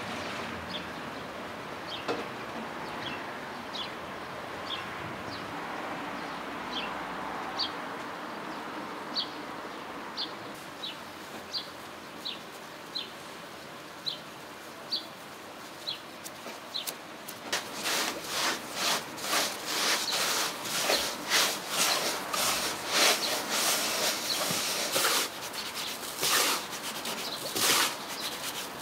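A small bird chirps repeatedly, short high calls about once a second, over a soft outdoor hiss. A little past halfway, gloved hands start rubbing and tossing dry couscous grains in a wooden bowl, a dense, quick, gritty rustle that is louder than the chirping.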